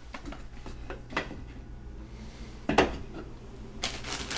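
Light clicks of Go stones and their wooden box being handled, with one sharp, louder click about two-thirds of the way in; a rustling starts near the end.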